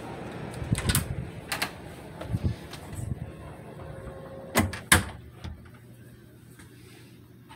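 Clicks and knocks of a door being handled, the loudest two coming close together about four and a half seconds in; after them a faint low steady hum.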